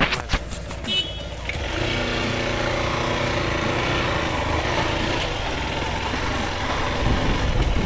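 Motorcycle engine running steadily as the Yamaha bike is ridden slowly over a rough dirt road, with a haze of wind and road noise. A few sharp clicks in the first second or so.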